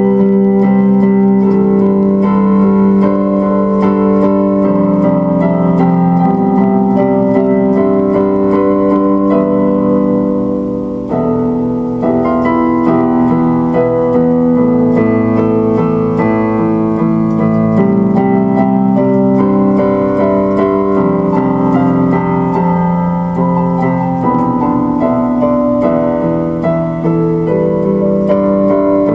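Background music played on an electric piano or keyboard, with sustained chords at a steady level.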